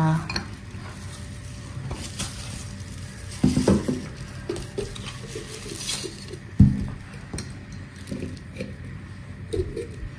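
Clinks and knocks of a dish and utensils as raw silver pomfret is handled for seasoning, scattered and irregular, with two louder knocks about three and a half and six and a half seconds in.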